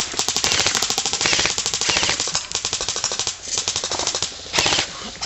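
Airsoft guns firing long full-auto bursts: a fast, even stream of sharp cracks, broken by a few short pauses between bursts.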